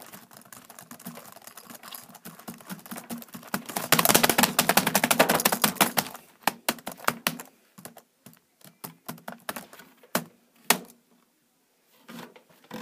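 Rapid tapping and clicking from hands working fast on a hard surface: a loud, dense flurry of clicks about four to six seconds in, then scattered single clicks that thin out.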